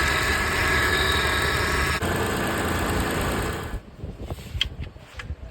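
Car engine running with a steady, dense mechanical noise that stops abruptly about two-thirds of the way in. Scattered light clicks and knocks follow.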